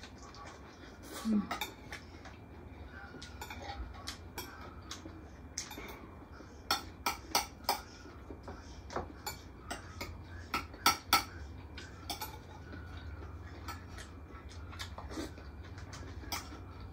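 Metal cutlery clinking and scraping on ceramic plates and glass serving bowls during a meal: irregular light clicks, with runs of several quick clinks about 7 seconds in and again about 11 seconds in, over a low steady hum.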